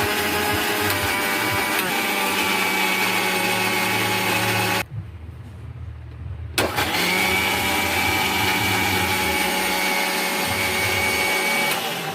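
Electric mixer-grinder blending pineapple pieces with water into juice, its motor running with a steady whine. It stops about five seconds in, starts again a couple of seconds later, then runs until just before the end.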